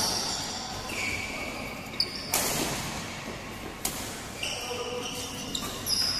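Badminton rally: sharp racket hits on the shuttlecock a second or two apart, with shoes squeaking on the court floor in between. The hits ring on in the reverberant hall.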